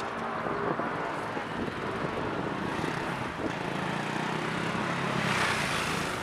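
Urban road traffic: a vehicle passes close, its engine hum and tyre noise swelling to a peak about five seconds in, over steady background traffic.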